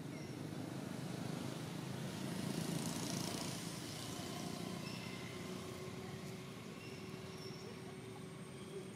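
A motor vehicle passing by, its rushing noise swelling to its loudest about three seconds in and then slowly fading. Short high chirps repeat over it.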